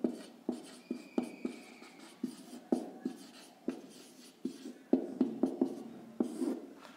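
Marker pen writing on a whiteboard: a quick run of short, irregular taps and strokes as letters are formed, with a thin squeak from the tip lasting about a second, starting about a second in.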